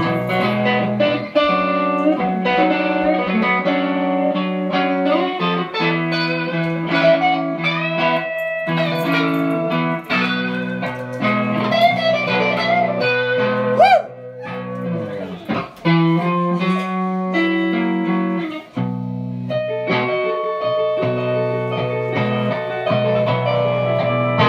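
Electric guitar played through a small amplifier: a run of quick single notes and chords, with one note bent upward just past halfway.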